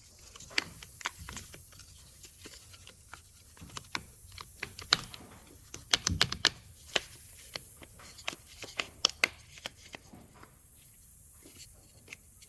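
Irregular light clicks and taps of a removed truck door handle assembly being handled and worked, small plastic and metal parts knocking together, busiest in the middle with one duller knock and thinning out near the end.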